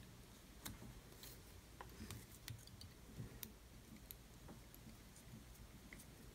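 Faint, irregular small clicks and handling noise of a whip finish tool and tying thread being worked at the head of a jig in a fly-tying vise, tying off the final knot. Otherwise near silence.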